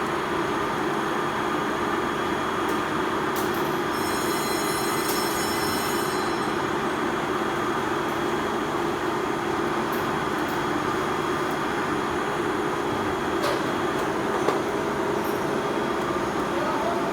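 Metal lathe running with a steady mechanical hum, with a brief high-pitched ringing about four seconds in that lasts about two seconds.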